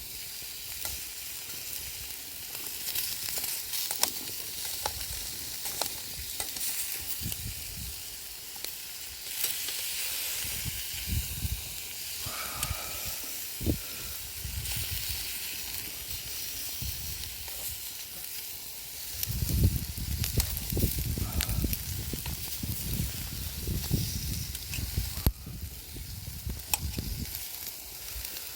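Food sizzling and crackling over a campfire: a steady hiss dotted with sharp pops. About two-thirds of the way through there is a stretch of low rumbling knocks.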